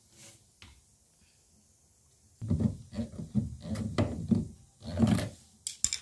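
Washing machine drain parts being handled and checked for a blockage: a run of rough, irregular rubbing and scraping for about three seconds, then two sharp clicks near the end.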